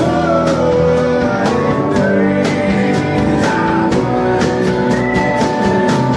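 Live rock band playing an instrumental passage, led by electric guitar with drums keeping a steady beat.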